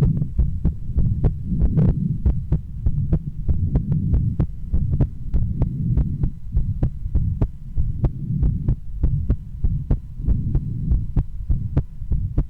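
A woman's heartbeat heard through a stethoscope: a quick, regular beat of soft thuds over a steady low rumble.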